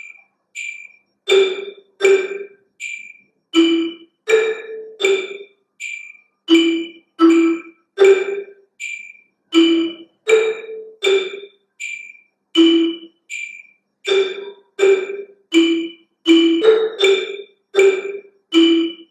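Soprano marimba played with two mallets, single notes on E, G and A struck in an even beat, each ringing briefly. Under them runs a steady high-pitched metronome tick, about three ticks every two seconds, which starts before the marimba comes in about a second in.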